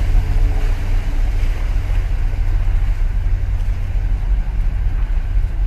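Steady low rumble of a container ship passing close by in the harbour channel. The last of its horn blast dies away right at the start.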